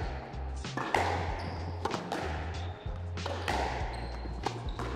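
Squash ball being struck back and forth in a rally: sharp racket hits and wall impacts, about one a second, each with a short echo off the court walls. A background music track with a steady bass line runs underneath.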